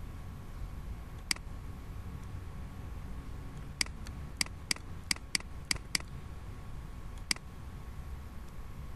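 Computer mouse button clicking: about nine short, sharp clicks, most of them in a quick run between about four and six seconds in, over a faint steady hum.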